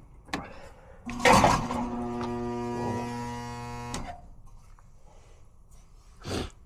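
HVAC furnace blower motor energized with a loud jolt, then a steady humming drone with many overtones for about three seconds that cuts off suddenly, followed by a single knock near the end. The noise comes from a blower wheel loose on the motor shaft.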